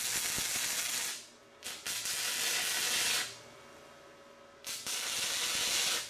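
Flux-core wire welder arc crackling and hissing in short tack-weld bursts on mild steel. One burst ends about a second in, and two more follow, each about a second and a half long, with quiet gaps between.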